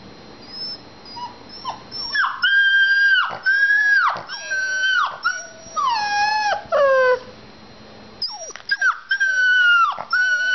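Puppy howling: after a few faint short yips, a run of long, high cries, each falling in pitch at its end, with a brief pause about seven seconds in before the cries start again.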